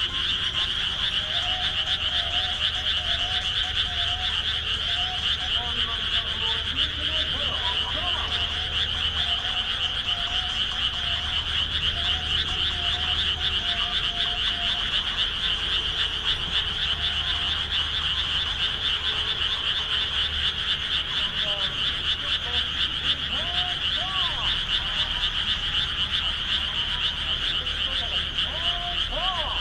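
A dense chorus of frogs calling in rice paddies, a steady high-pitched mass of calls. Fainter wavering tones rise and fall underneath at times.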